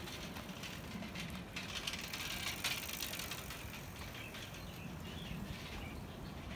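Bicycle freewheels ticking faintly as cyclists coast past on a paved path, with irregular light clicks over a soft outdoor hush.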